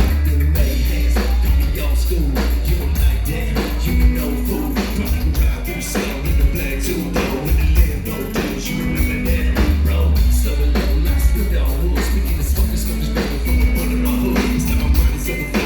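Live band music played loud through a PA: heavy bass, a drum kit keeping a steady beat, and guitar.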